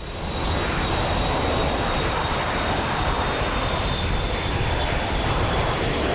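Turboprop aircraft engines running, a steady loud rush with a thin high turbine whine that slowly falls in pitch. The sound swells up in the first half second.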